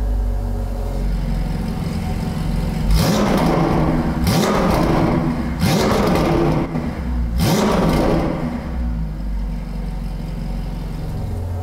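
Ferrari 488 GTB's twin-turbo 3.9-litre V8 running through an aftermarket, freer-flowing exhaust. It idles, is blipped about four times in quick succession in the middle with each rev rising and dropping back, then settles to idle again.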